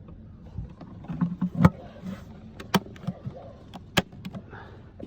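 Smith Corona typewriter and its carrying case being handled: a string of sharp clicks and knocks, the three loudest about a second apart.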